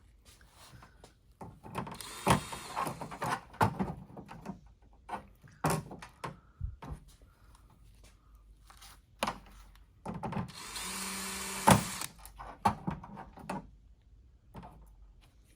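Cordless electric screwdriver driving screws into a display's AD board in two short runs, about two seconds in and again about ten seconds in, with clicks and knocks of handling the board and tool between them.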